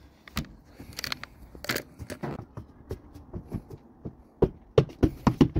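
Unpacking and handling sounds: irregular crunching and crinkling of packaging being torn or moved, with scattered clicks, then a quick run of sharp knocks near the end.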